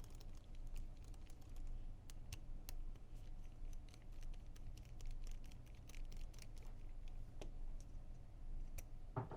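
Faint, scattered small clicks and taps of plastic and metal parts being handled as an Action Army AAP-01 airsoft pistol's upper is taken apart to remove the bolt and barrel.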